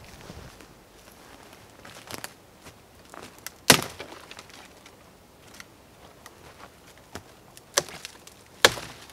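Dry dead branches snapping as they are broken off by hand for firewood: a few sharp cracks, the loudest about a third of the way in and two more near the end, with lighter twig snaps and rustling between.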